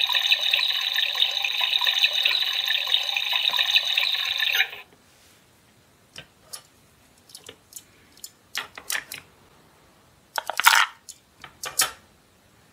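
Toy kitchen stove's electronic frying sound effect, a steady sizzle with a tinny ring, which cuts off suddenly about four and a half seconds in. After it come light plastic clicks and knocks from the toy's pieces being handled, the loudest near the end as the pan is lifted.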